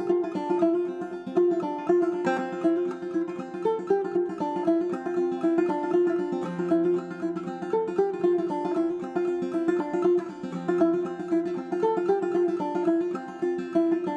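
Banjo played clawhammer style: a brisk, even stream of plucked notes over one steadily recurring note.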